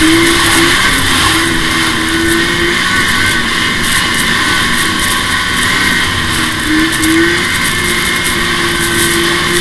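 2005 Arctic Cat F6 EFI snowmobile's two-stroke twin engine running at a steady cruising speed. Its pitch rises slightly near the start and again about seven seconds in, over a constant rush of noise.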